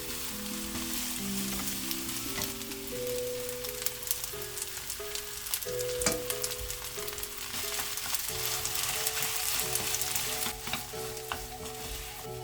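Food sizzling and frying in a pan as it is stirred, with a steady hiss and occasional sharp clicks of a utensil against the pan. A soft melodic background tune plays underneath.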